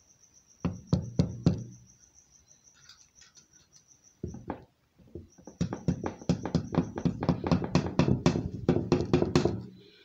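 Steel nail tapping the notched, left-hand-threaded nut of a bicycle freewheel to drive it tight: a few sharp metal taps about a second in, then a quick, even run of about five taps a second over the last four seconds.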